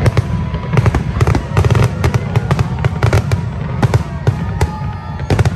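Aerial fireworks display: a rapid string of sharp cracks and bangs from bursting shells, several a second, over a constant low rumble.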